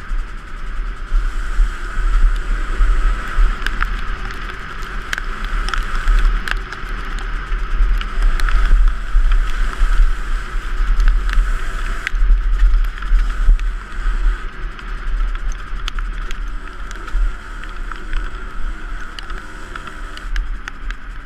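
Two-stroke dirt bike engine running hard, its note rising and falling with the throttle, under heavy wind buffeting on the onboard camera's microphone, with scattered sharp clicks.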